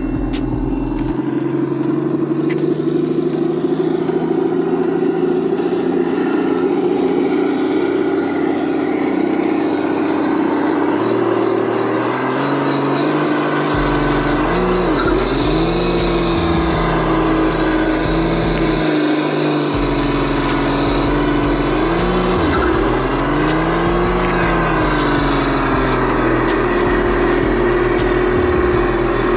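Engine-sound module of an RC Toyota Land Cruiser crawler playing a simulated engine through its small speaker. It idles steadily, then revs up and back down a few times in the second half as the throttle is worked.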